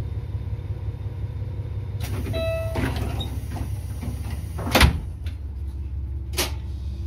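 Diesel railcar's engine rumbling low and steady. About two seconds in comes a hiss and a short beeping tone, and near five seconds a sharp loud knock with a smaller one after it: the doors closing before the train pulls out.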